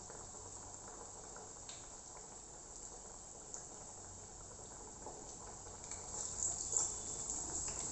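Masala vadas (chana dal fritters) frying in a pan of hot oil: a faint, steady sizzle that grows louder near the end, with a few small clicks.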